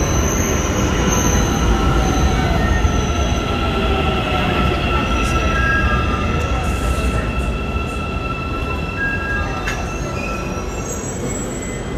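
Metro train pulling into the station and slowing to a stop: a steady rumble of wheels on rail with several high, steady squealing tones, easing off gradually as the train comes to rest.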